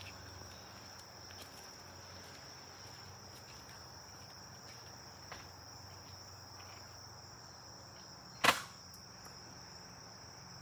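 Adventure Force Double Fire toy dart blaster firing both barrels at once: a single sharp pop about eight and a half seconds in. Steady high cricket chirring runs underneath, with a faint click about five seconds in.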